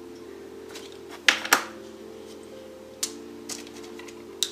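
Sharp clicks and taps, the two loudest about a second and a half in, as heart sprinkles are tossed into a plastic funnel and the funnel is handled. Soft background music with held chords plays underneath.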